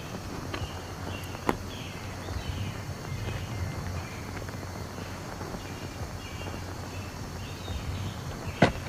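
Old film soundtrack ambience: a steady hiss with faint high chirping and a few scattered footstep scuffs and clicks, with sharper knocks near the end.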